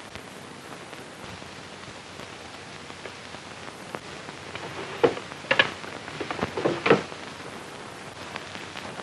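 Steady hiss of an old film soundtrack, with a cluster of short handling noises, likely papers being picked up, about five to seven seconds in.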